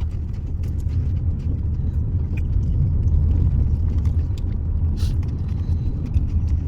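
Low, steady rumble of a car driving, with a few faint clicks.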